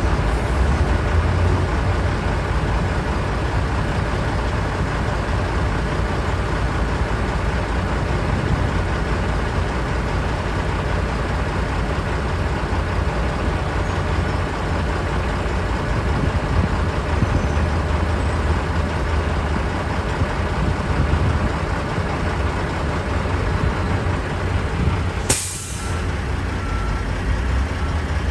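Norfolk Southern diesel freight locomotives hauling coal hopper cars slowly past, a steady low engine rumble. About 25 seconds in there is one brief, sharp hiss.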